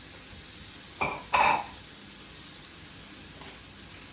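Chopped mushrooms and walnuts sizzling steadily in a frying pan. A little after a second in, two short, sharp sounds close together stand out above the sizzle.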